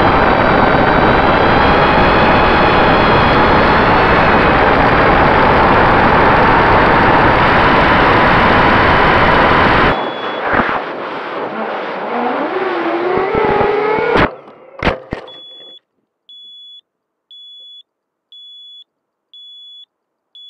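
Eachine X220 Wizard quadcopter's 2205 brushless motors and propellers running hard with wind noise, cutting out abruptly about ten seconds in as control is lost. The quad falls with a rising whistle and hits the ground with a sharp knock about four seconds later, and then a beeper gives short high beeps about once a second.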